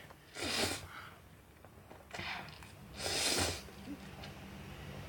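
Three short, noisy breath sounds from a person eating, the last and loudest about half a second long, with a faint steady low hum coming in about two seconds in.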